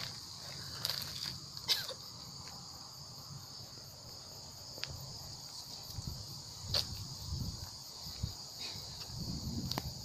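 Insects chirring in a steady, high, even drone, with a few sharp clicks close by.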